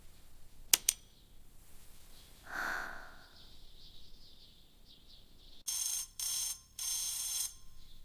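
Two sharp clicks, then a mechanical alarm clock bell ringing in three short bursts near the end.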